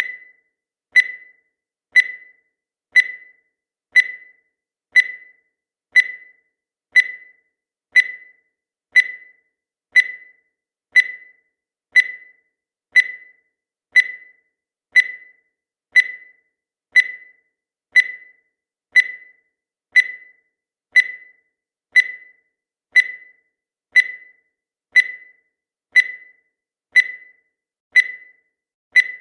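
Countdown timer sound effect: a short electronic beep at a high, steady pitch, repeating once every second, each beep dying away quickly.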